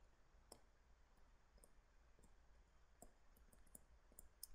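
Near silence with faint, scattered clicks of a stylus tapping a tablet screen as it writes.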